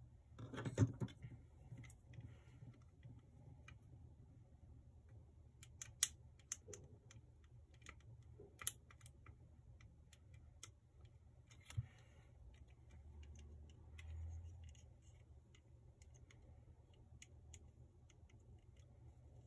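Plastic parts of a Zoids HMM Death Stinger model kit clicking and knocking as they are handled and fitted together on a desk: faint, scattered sharp clicks, the loudest a knock about a second in. A soft low rumble comes about two-thirds of the way through.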